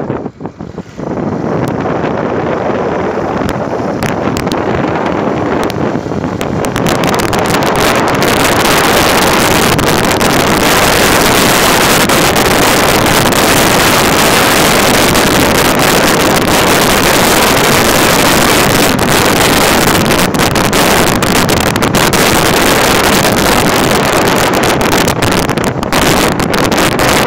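Wind rushing over the microphone of a camera riding on a moving motorcycle, mixed with the ride's engine and road noise, as a steady loud rush. It grows stronger and brighter about seven seconds in.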